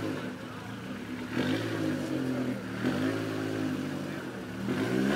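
Car engine revving at a car meet, its pitch climbing and falling several times as the throttle is blipped and held.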